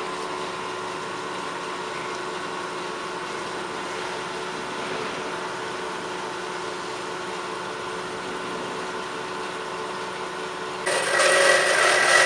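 Metal band saw running: a steady motor and hydraulic hum with several steady tones. About eleven seconds in, a louder, harsher whining noise starts, as the blade begins cutting metal.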